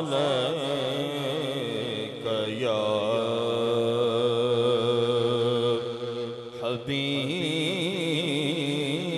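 A man's amplified voice reciting the Quran in the melodic tajweed style (tilawat). He holds long notes with wavering, ornamented pitch and pauses briefly for breath about two-thirds of the way through.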